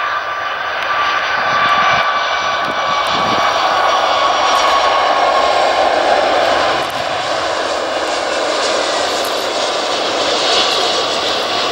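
Boeing 757 freighter's jet engines on approach and landing: a steady roar with a high whine that fades over the first few seconds, dropping slightly in level about seven seconds in.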